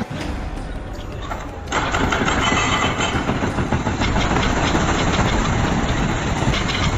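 Heavy excavator's diesel engine running during demolition work. The sound jumps abruptly, louder and brighter, a little under two seconds in.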